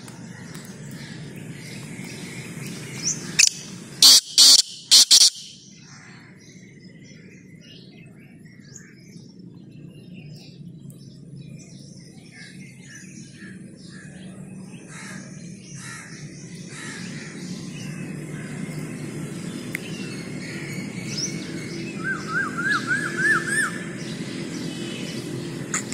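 Black francolin calling loudly: five sharp notes in about two seconds, a few seconds in. Small birds chirp faintly throughout, with a quick run of about eight short rising chirps near the end.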